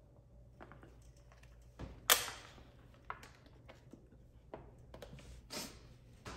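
Scattered light clicks and taps from hands and tools working tint film onto a plastic headlight lens, with one sharp click about two seconds in that is the loudest.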